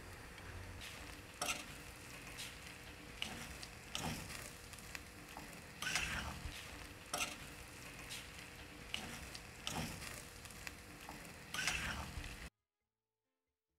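Mashed plantain frying in a steel pan, a steady sizzle with a spoon scraping and knocking against the pan about once a second. The sound cuts off suddenly near the end.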